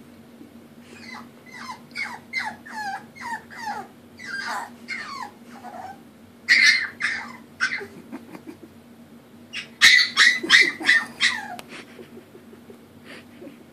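French Bulldog puppy whining and crying, a run of short high-pitched cries that fall in pitch, with louder cries about halfway through and again about three quarters through. She is crying because she wants help climbing the stairs.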